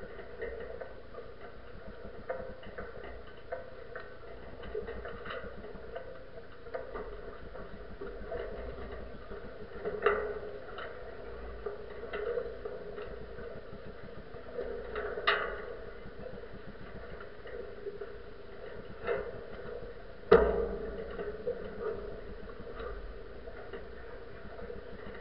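Rattling and ticking from a camera mounted at the top of a sailing yacht's mast, with the mast and rigging knocking sharply several times as the boat sails; the loudest knock comes about twenty seconds in.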